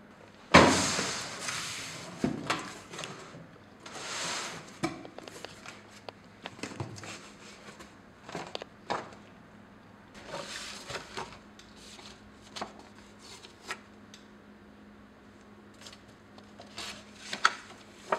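Cardboard box of paint supplies being unpacked by hand: a sudden loud rustling burst about half a second in, then cardboard flaps rustling and metal paint tins and a brush knocking and clinking, with sheets of paper rustling and a few sharp clicks near the end.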